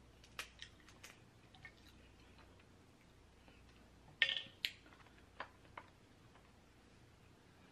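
Scattered soft clicks and crackles from crab legs being picked apart by hand and eaten, with a louder cluster of cracks about four seconds in.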